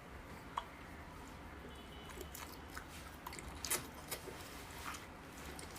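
A person chewing and eating food close to the microphone: faint chewing with a scattering of short wet smacks and clicks, the sharpest a little past halfway.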